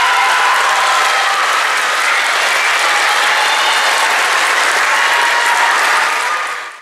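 Audience applauding steadily, fading out at the very end.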